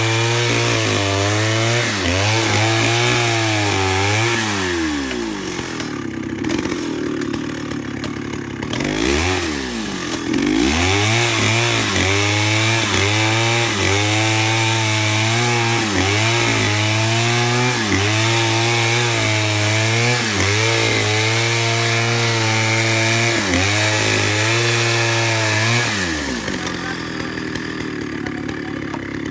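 Stihl chainsaw running near full throttle while ripping a pine log into lumber, its pitch dipping about once a second as it works through the cut. The engine falls back about five seconds in, revs up again a few seconds later, and drops off near the end.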